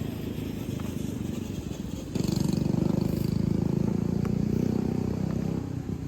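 A motor vehicle's engine running, louder from about two seconds in until shortly before the end, with a few faint sharp knocks over it.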